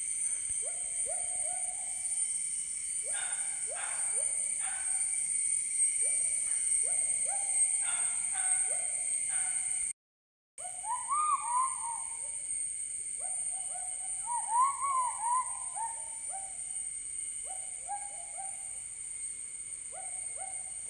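Unidentified forest animal calls: many short, rising hoot-like calls in quick runs, with louder arched calls in the second half. Underneath is a steady high-pitched drone typical of forest insects. The sound cuts out for half a second about ten seconds in.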